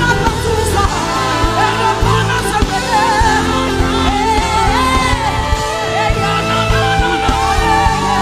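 Live gospel worship music: a singer's voice gliding and wavering in pitch over sustained instrumental chords and a low bass line.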